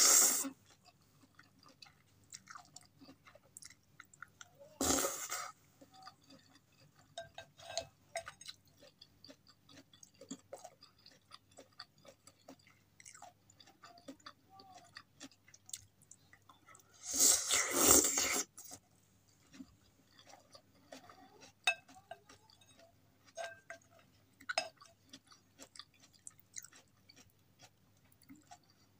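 Close-miked eating of soupy instant noodles with vegetables: soft chewing and wet mouth clicks throughout. Loud noodle slurps break in at the start and about five seconds in, and a longer slurp of over a second comes a little past halfway.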